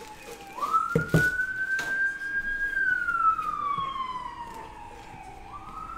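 An emergency vehicle's siren wailing, its pitch sweeping up, sliding slowly down, then jumping up again near the end. In the first two seconds a few sharp crinkles of plastic shrink wrap being pulled off a box are the loudest sounds.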